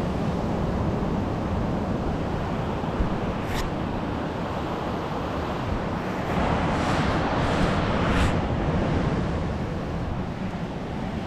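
Wind buffeting the microphone over a steady rush of surf, growing louder for a couple of seconds past the middle, with a single sharp click about three and a half seconds in.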